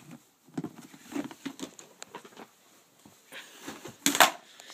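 Clear plastic storage box of RC car parts being handled and shifted: scattered light knocks and rattles, with a louder rustle about four seconds in.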